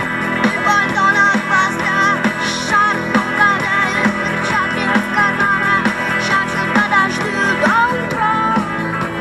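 Rock music, an instrumental stretch of a cover song: a lead melody line with bent notes over a steady driving beat and rhythm guitar.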